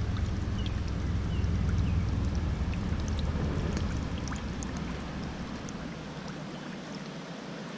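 River water splashing and trickling at the bank's edge as a hand is swished and rinsed in the shallows, with small scattered drips. A low rumble underneath fades out about two-thirds of the way through.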